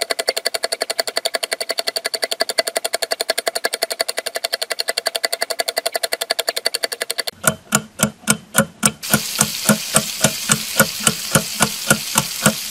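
Background soundtrack of fast, evenly repeating pulses, about eight a second. About seven seconds in they change to slower, heavier beats of about four a second, with a hiss behind them from about nine seconds in.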